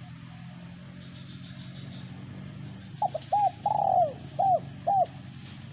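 A dove of the kind called tunjur cooing in a quick run of about five notes, starting about three seconds in; the middle note is longer and falls away in pitch.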